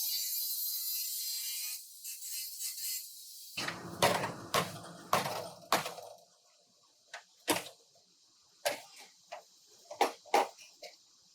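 A steady hiss that cuts off about two seconds in, then an irregular run of sharp knocks and clicks from tools at work on car bodywork, loudest in a cluster a few seconds in and again near the end.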